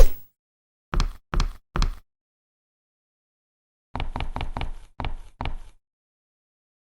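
Short, sharp knocking or thudding impact sound effects: one right at the start, three in quick succession about a second in, then a fast run of them around the fourth and fifth seconds, with dead silence in between.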